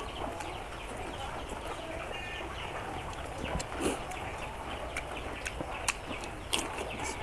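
Close-miked eating sounds: mouth and chewing noises with several sharp clicks, including a crisp bite into a raw cucumber slice about six seconds in. Chickens cluck faintly in the background.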